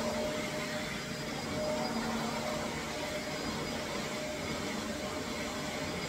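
Shark upright vacuum cleaner running on carpet as it is pushed back and forth: a steady rushing noise with a faint hum that comes and goes.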